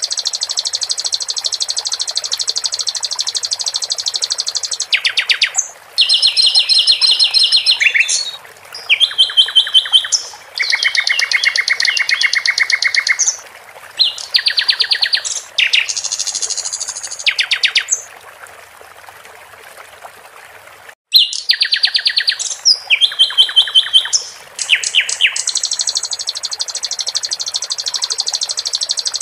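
Sikatan londo songbird singing in rapid trills of quickly repeated notes, phrase after phrase at shifting pitches, with a pause about two-thirds of the way through. A steady trickle of water runs beneath the song.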